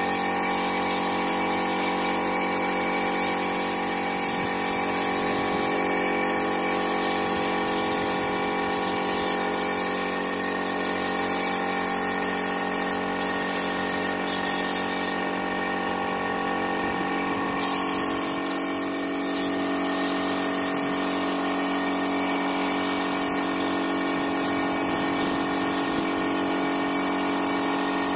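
Gravity-feed air spray gun hissing steadily as it atomises paint, with a steady mechanical hum underneath.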